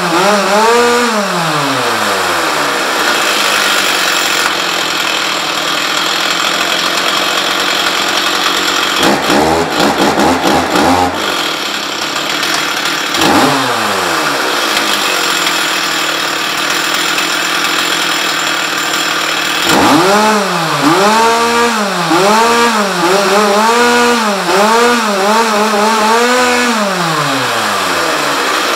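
Stihl 044 two-stroke chainsaw running after a top-end rebuild, idling between throttle blips. It revs up and drops back a couple of times near the start and once in the middle, then is revved in quick succession, about once a second, for several seconds before settling back to idle. These are the revs of carburettor adjustment.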